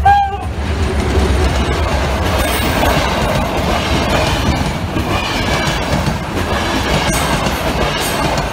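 A diesel-hauled passenger train passing close by at speed. A horn note cuts off right at the start, the locomotive's engine drones low as it goes by, and then the coaches' wheels clatter and rattle over the rail joints.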